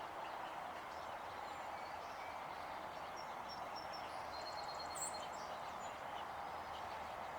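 Steady outdoor background hiss with a few faint, short, high bird chirps scattered through it, the clearest about five seconds in.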